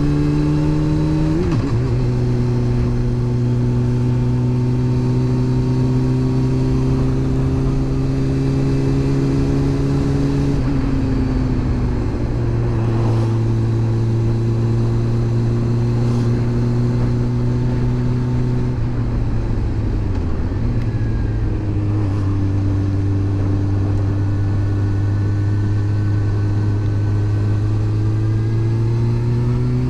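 Honda CB400 Super Bol d'Or's inline-four engine, heard from the rider's seat while riding along with wind noise underneath. Its note drops about a second and a half in, again around eleven seconds and around twenty seconds, then climbs near the end as the bike accelerates.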